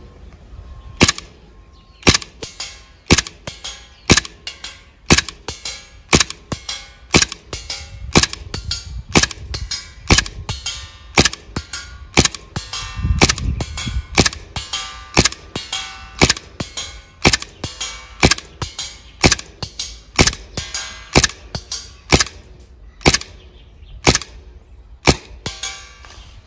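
JDG Polymer80 PFS9 gas blowback airsoft pistol firing shot after shot, about one a second, each a sharp crack of gas and slide blowback. A fainter click follows just after most shots.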